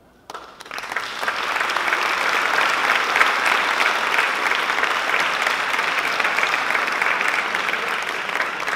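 Theatre audience applauding the end of a musical number: dense clapping that starts suddenly a moment in and holds steady.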